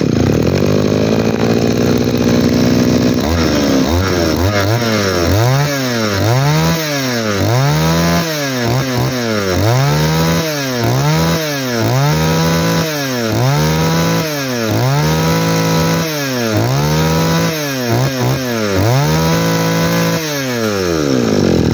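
Mitsubishi TL231 two-stroke brush-cutter engine running, steady at first, then revved up and down over and over, about once a second, and dropping back to idle near the end. It runs cleanly, the sign of an engine in good working order.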